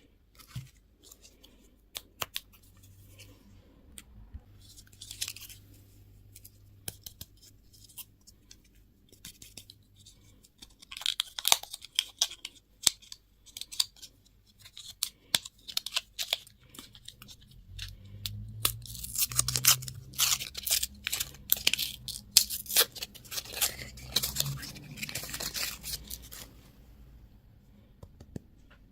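Plastic candy and toy packaging handled and torn open: scattered sharp clicks and taps, then a long stretch of dense crinkling and tearing about two-thirds of the way through.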